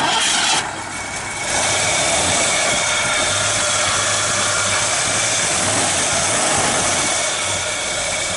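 1972 Mercury Cougar's 351 cubic-inch V8 idling with the hood open, heard close up as a steady, even rushing noise with only a weak low hum; it dips briefly about a second in.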